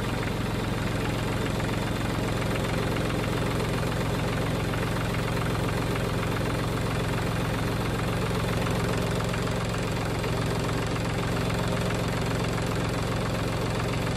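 Tractor engine idling steadily with a strong low hum and no change in speed, cutting off abruptly at the end.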